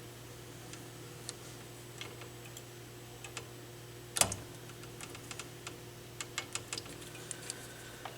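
Small metal clicks and ticks of a screwdriver prying at the tiny retaining clips on a stereo receiver's dial-pointer lamp holder. There are scattered light ticks, one sharper click about four seconds in, and a quicker run of ticks in the last few seconds, all over a steady low hum.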